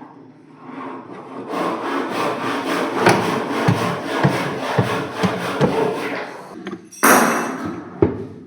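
Wood being sawn, in regular strokes about two a second, with a louder stroke near the end and a sharp knock just after it.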